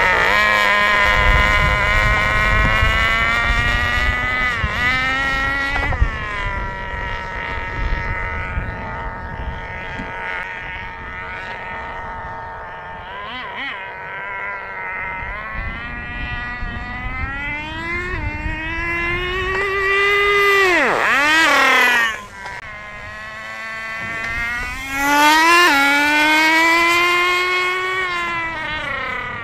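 HPI Nitro Star T-15 two-stroke nitro engine of a 1/10 RC touring car at high revs, its pitch rising and falling as it accelerates and shifts. About three-quarters of the way through it passes close by with a sharp fall in pitch, then revs up again. The owner says it keeps dying out flat out in second gear and blames old nitro fuel gelled in the carburettor starving it of fuel.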